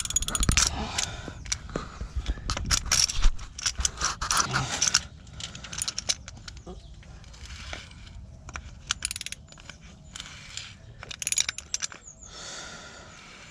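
Irregular metallic clicks, clatter and scraping as a socket and ratchet are fitted onto a Volvo V70's cartridge-type oil filter housing and worked to tighten it. The clicks come in clusters, busiest in the first few seconds.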